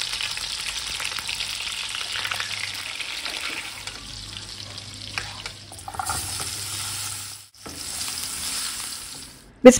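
Oil sizzling and bubbling in a frying pan as pepper-crusted beef steaks sear, then vegetables are stirred in hot oil, with a few light clicks of a spoon or spatula against the pan. The sizzle drops out briefly twice, about seven and a half seconds in and just before the end.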